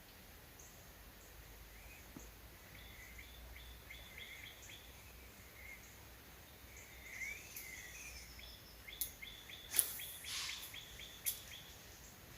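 Birds chirping outdoors at dusk in short repeated notes, over a low steady rumble. From about nine seconds in come a few sharp clicks, the loudest near ten seconds.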